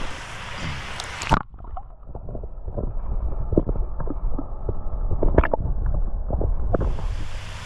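Muffled water gurgling and sloshing with scattered knocks, heard through a camera dipped under the creek's surface from about a second and a half in until near the end. Before and after, the open rush of flowing water.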